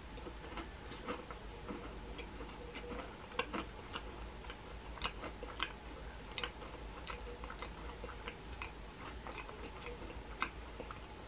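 Faint chewing of a soft macaron: small, irregular mouth clicks and smacks over a steady low hum.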